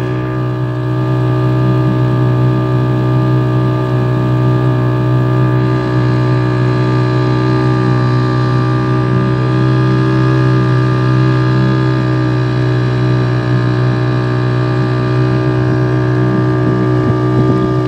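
Boat engine running steadily at constant speed, a loud low hum with an even, unchanging pitch.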